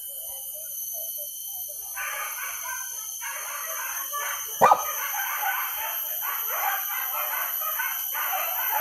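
A pack of hunting dogs yelping and baying together in the chase after a wild boar, starting about two seconds in, with one sharp yelp near the middle. A steady high insect drone sits underneath.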